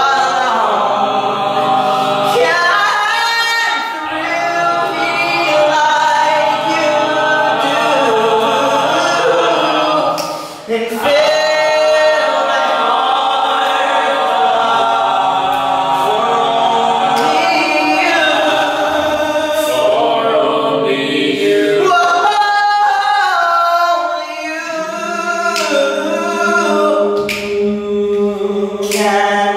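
A small group of men singing an a cappella medley in harmony in a stairwell.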